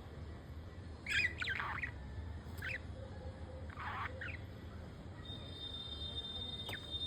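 Budgerigars giving about four short chirps and squawks, spaced out, over a low steady hum.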